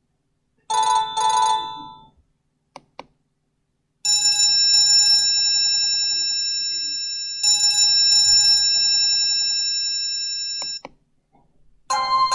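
Medion M5511 mobile phone playing its built-in tones: a short two-note blip about a second in, two faint clicks, then a bell-like ringtone that sounds twice, each ring held about three seconds and fading slowly.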